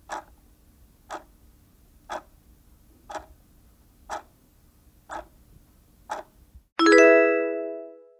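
Countdown timer sound effect: a clock ticks once a second, seven ticks in all. Then comes a bright chime, the loudest sound, ringing and fading away as the countdown reaches zero and the answer is shown.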